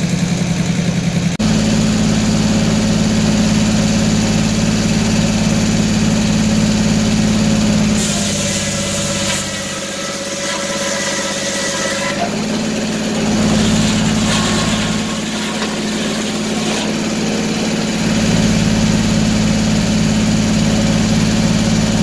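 Circular sawmill running: the large circular blade spins and saws through a log on the carriage, over a steady droning hum from the mill. For a few seconds, about eight seconds in, the sound turns harsher and hissier, with a ringing tone.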